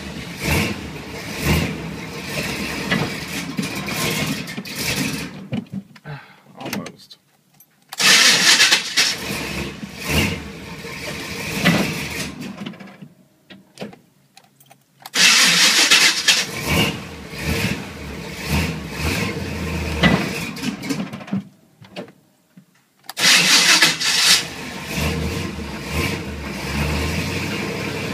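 1986 Chevy K5 Blazer's 350 V8 being started again and again: each try opens with a harsh burst from the starter, which is meshing with a damaged flywheel, and then the engine sputters unevenly for several seconds before stopping. Three fresh tries follow the first, and the last is still going at the end. The engine is running on stale, water-laden gas through a partly plugged Quadrajet carburetor.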